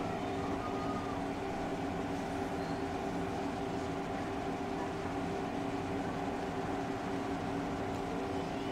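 Steady background hum with several constant tones running underneath, even and unchanging throughout.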